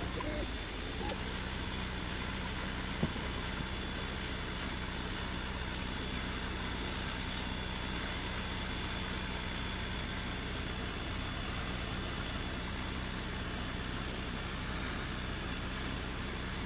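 Creality Falcon 2 22 W diode laser engraver running a plywood cut: a steady rushing of its air-assist and cooling fans over a low hum. It dips briefly just after the start, and there is one small tick about 3 s in.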